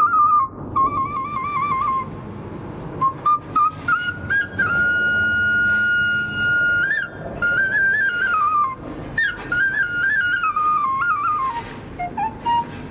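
A wooden shepherd's flute playing a solo folk melody, full of quick trills and turns, with one long held note about halfway through.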